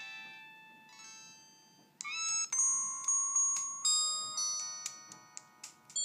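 Samsung SGH-B270/C270 flip phone playing built-in ringtone previews through its small speaker. One melody fades out over the first two seconds. About two seconds in, another starts abruptly: an electronic tune of clear notes, each struck and dying away.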